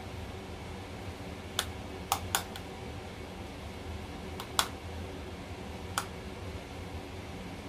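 Sharp, scattered clicks and taps from handling a plastic powder compact and makeup brush, three close together about two seconds in, then single ones near the middle and later, over a steady low room hum.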